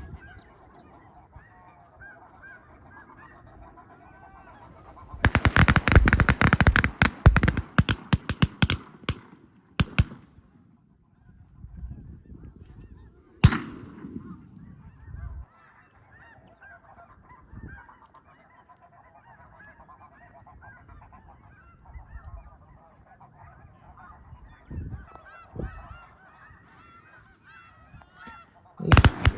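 A large flock of snow geese honking constantly. Loud sharp cracks come in a dense cluster from about five to ten seconds in, a single crack about thirteen seconds in, and another cluster near the end.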